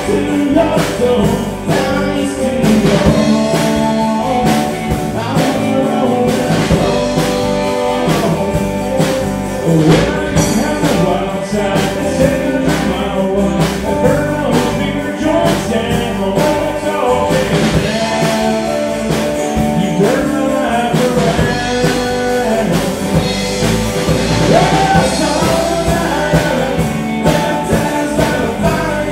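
Live country-rock band playing loud and amplified: electric guitars and bass over a steady beat, with a lead singer.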